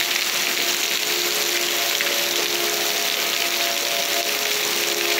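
Heavy rain pouring steadily, with faint steady tones of distant outdoor tornado warning sirens sounding under it.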